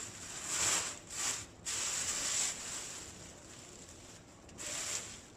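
Plastic bag rustling and crinkling in four or five short bursts, as raw whole fish are handled and taken out of it.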